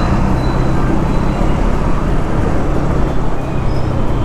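KTM Duke 200's single-cylinder engine running steadily at light, even throttle while riding, over road and traffic noise.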